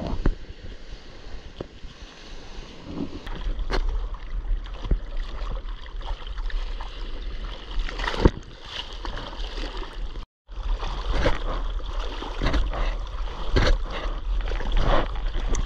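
Ocean surf, then sea water splashing and sloshing against a GoPro action camera as it goes into the water with a surfboard through small waves. Irregular sharp splashes and a low rumble of water on the microphone, with a brief break in the sound about ten seconds in.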